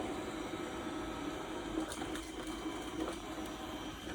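Dreame D9+ robot vacuum running while it cleans: a steady motor hum, with a few faint clicks about two seconds in.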